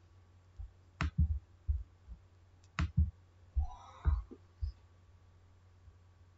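Computer mouse clicking: a few sharp clicks, the clearest about one second and about three seconds in, mixed with soft low thumps, then quiet for the last couple of seconds.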